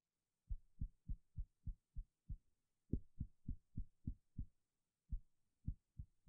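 Soft, dull taps of a reflex-hammer test, in three quick runs at about three taps a second.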